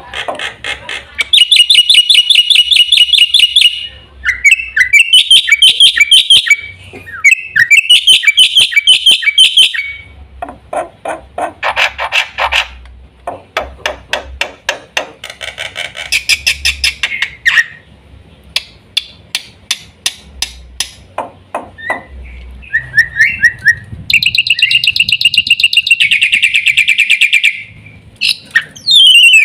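Black-winged myna (jalak putih) calling loudly. It gives bouts of rapid, harsh repeated notes a few seconds long, with quick clicking chatter between them.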